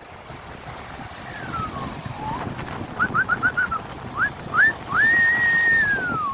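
A person whistling over wind and surf noise: a falling note, a quick run of five short rising chirps, two more rising notes, then a long held high note that slides down near the end.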